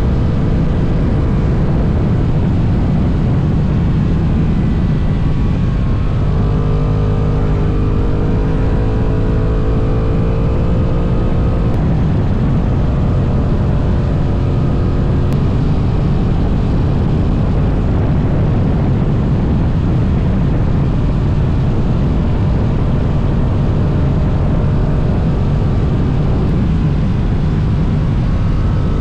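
Heavy wind rush on the motorcycle-mounted camera at highway speed, over the running note of a Honda NT1100's parallel-twin engine. About six seconds in, the engine note comes through more clearly and climbs slowly for several seconds.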